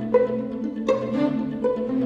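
Background music played on strings: a melody of plucked notes over a low held bass line.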